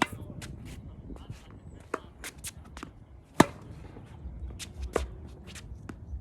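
Tennis balls struck by rackets in a rally: sharp pops about every one and a half seconds, alternately louder and fainter, the loudest about three and a half seconds in. Wind rumbles on the microphone underneath.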